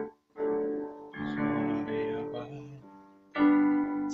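Electronic keyboard in a piano voice playing held chords: after a brief silence, a chord is struck about a third of a second in, another about a second in, and a louder one near the end.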